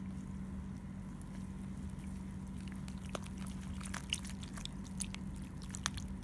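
Silicone spatula stirring flour and liquid into a sticky batter in a plastic bowl: soft wet scraping with small clicking and squelching noises that come more often in the second half, over a steady low hum.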